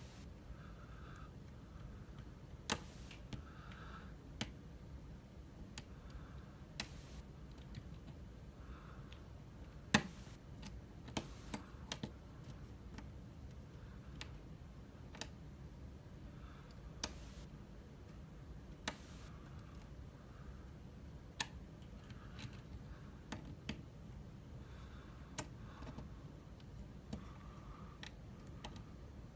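Lock pick and tension tool working the pins of an Abus C83 euro cylinder: sharp, irregular clicks a second or two apart, with faint scraping between them.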